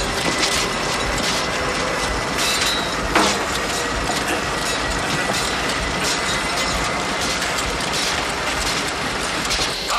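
Machinery clattering and hissing steadily, with a faint steady high whine and one sharper clank about three seconds in.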